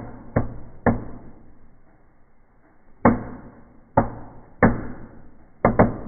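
Fireplace firework burning among the logs of a stove fire, giving sharp pops at irregular intervals: two in the first second, a pause, then about five more from three seconds in, the last two close together.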